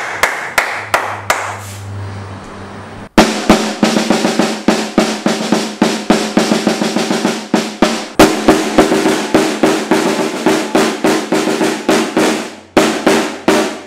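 A few hand claps, then after a sudden cut a snare drum struck rapidly with a drumstick, in strokes and rolls with the head ringing, until just before the end.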